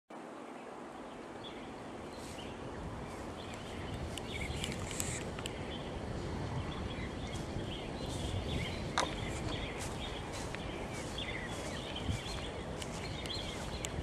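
Outdoor ambience: scattered short bird chirps over a steady low background rumble, with a sharp click about nine seconds in.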